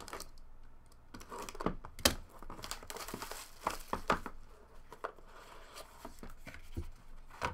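Plastic shrink wrap being torn and crinkled off a cardboard hobby box of trading cards, then the cardboard box handled and opened. Irregular crackles run throughout, with one sharp click about two seconds in.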